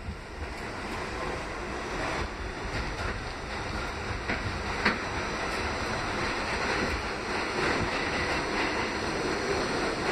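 R68A subway car running along the track, heard from inside the car: a steady rumble and rush of wheels on rail, with a few sharp clicks of wheels over rail joints, the loudest about five seconds in.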